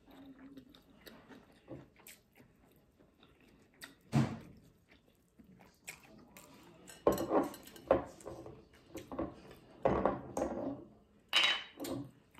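Close-miked chewing and mouth sounds of someone eating a crisp fried boiled egg. The sounds come in scattered short spells with quiet gaps between them.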